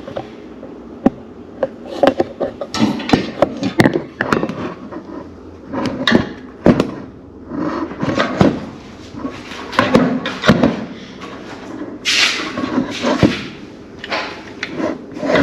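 Repeated clicks and clanks of a racing harness's metal buckle hardware being handled and fitted together, with rustling of the belts.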